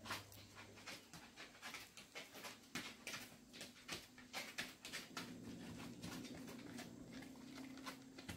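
Small shaggy dog panting and sniffing: a quick, uneven run of short puffs, about three or four a second. A low steady hum comes in about halfway through.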